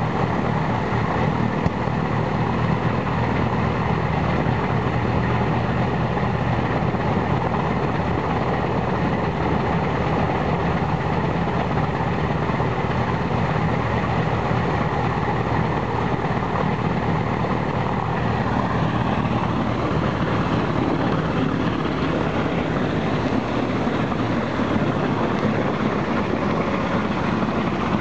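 Ilyushin Il-14T's Shvetsov ASh-82T radial engine running steadily on the ground, one engine only, with the other engine not yet started. A faint high whine sits under the engine noise and fades out about two-thirds of the way through.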